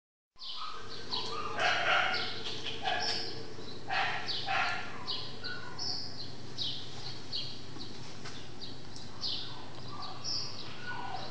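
Dogs in a stray-dog shelter barking and yipping over and over, short high calls about one or two a second, with a few fuller barks among them.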